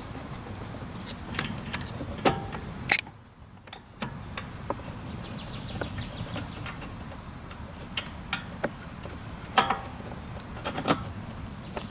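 Irregular metallic clicks and knocks of hand tools and parts being worked on the starter of a Kawasaki FS691V mower engine, over a steady background hiss. The sound dips briefly just after three seconds in.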